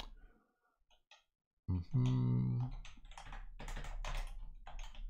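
Computer keyboard typing: a string of quick key clicks. It follows a second or so of near silence and a brief steady tone about two seconds in.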